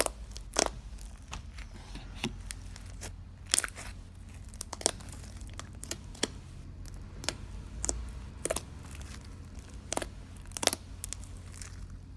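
Iceberg slime's dried, hardened crust cracking as it is pressed and broken, in sharp, irregular crackles and crunches.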